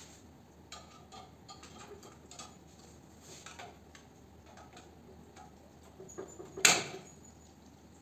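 Light metallic clicks and clinks of hand tools on an air conditioner outdoor unit's copper pipework, with one sharp, much louder metallic clack about two-thirds of the way in.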